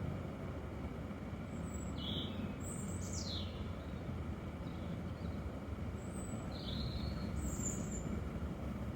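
A few scattered short bird chirps, one sliding down in pitch, over a steady low rumble.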